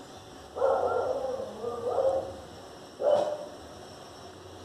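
A dog barking: a run of barks starting about half a second in, then a single bark about three seconds in.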